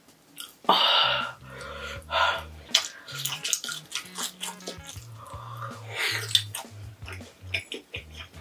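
Close-up eating sounds: chewing, lip smacks and small clicks as sliced luncheon meat and spicy noodles are eaten, with a few loud breathy huffs at the heat of the spicy sauce, the loudest about a second in. Background music with a low bass line plays under it.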